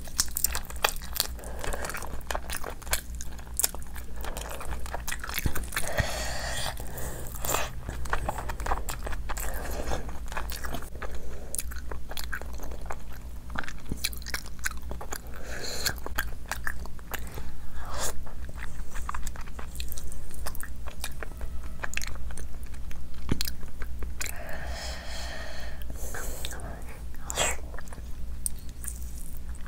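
A person eating rice and curry by hand: steady wet chewing and lip-smacking, with many short clicks and smacks from the mouth.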